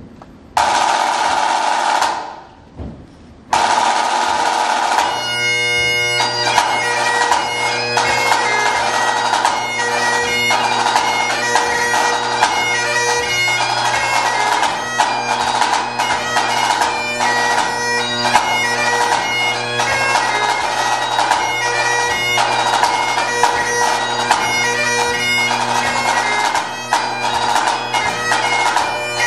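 Great Highland bagpipe with a pipe-band snare drum playing the opening of a march, strathspey and reel. The pipes strike in near the start; about five seconds in the snare opens with a roll, and from then on the drones hold a steady bass note under the chanter's melody while the snare plays crisp, rapid strokes.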